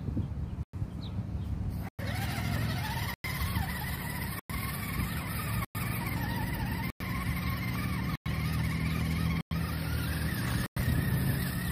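Electric motor and gearbox whine of an Axial SCX10 II RC crawler driving over a rocky trail. The whine starts about two seconds in and wavers in pitch with the throttle over a low rumble. The sound cuts out briefly about every second and a quarter.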